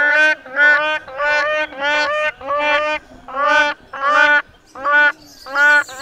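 Grey crowned crane calling: a run of nasal honks, about two a second, each note arching up and down in pitch.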